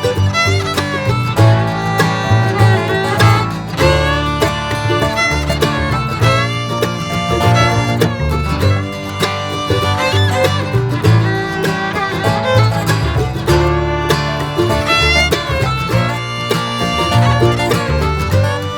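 Background music: an upbeat bluegrass tune with fiddle, guitar and banjo over a steady beat.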